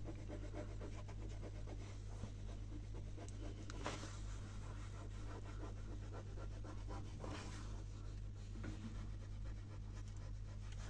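Damp microfiber cloth rubbing over a matte kitchen cabinet, wiping grease off in faint, irregular scrubbing strokes, over a steady low hum.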